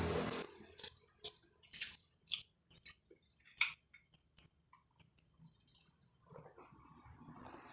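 Close-up wet chewing and lip-smacking of a person eating fried noodles: a dozen or so short, irregular smacks and clicks with quiet gaps between them.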